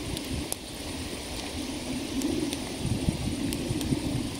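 Small campfire of dry grass and sticks burning, with a steady low rushing noise and a few scattered sharp crackles.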